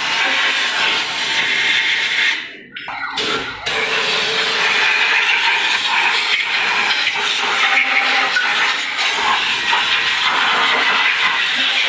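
Compressed-air spray gun hissing steadily as it blasts cleaning spray into the empty rear axle housing, flushing out iron dust and metal particles. The air cuts out briefly twice in quick succession about two seconds in, then resumes.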